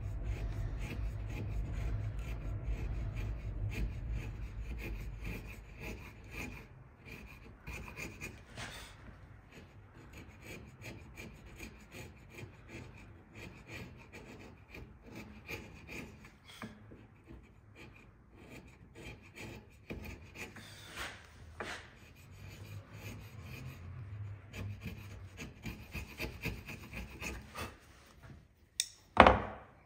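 Bevel-edged chisel paring thin slices off a pine halving joint by hand, many short scraping strokes, heavier for the first few seconds: fine-trimming a high spot so the joint sits flush. A sharp knock near the end.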